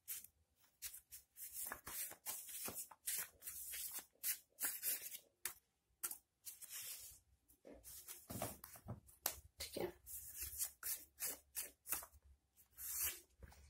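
A stack of round paper oracle cards shuffled by hand: a run of light card-on-card slaps and rustles, some cards slipping out of the stack onto the table.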